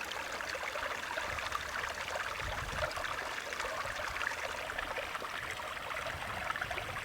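Small creek running over rocks, a steady babbling and trickling.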